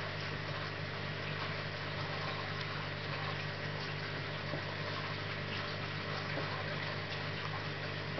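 Aquarium filter and pump equipment running: a steady low hum over an even hiss, with no change throughout.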